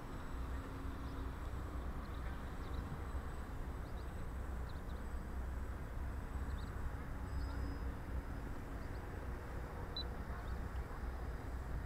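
Wind rumbling on the microphone, with a faint on-and-off drone from the distant model flying boat's motors and a few faint high bird chirps.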